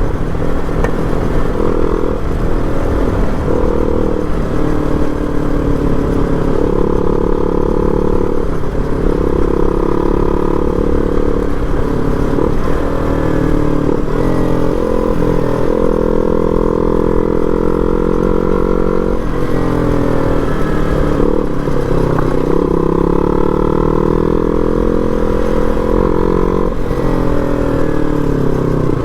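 KTM single-cylinder motorcycle engine running under way, its pitch rising and falling with the throttle.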